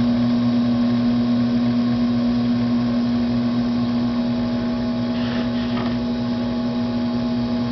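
Electric potter's wheel running at speed with a steady hum, with wet clay being coned up and centered on it.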